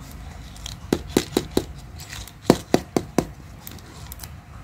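Hollow plastic toy surprise eggs being tapped: two quick runs of four sharp taps, about five a second, the second run starting about a second after the first ends.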